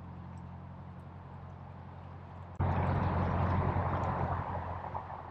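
Rushing stream water runs steadily; about two and a half seconds in the noise jumps suddenly much louder and stays loud for about two seconds before easing off.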